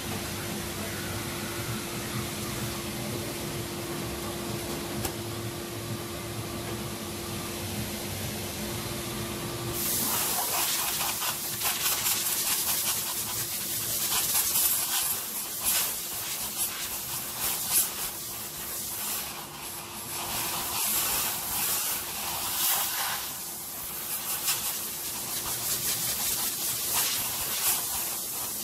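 Hand sanding of body filler on a car panel: from about ten seconds in, quick irregular scratchy strokes of abrasive against the repair. Before that, and faintly underneath, there is a steady low workshop hum.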